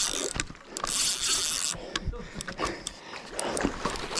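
A hooked giant trevally splashing at the water surface as it is played on rod and reel, a burst of splashing about a second in, with scattered sharp clicks and knocks of the tackle.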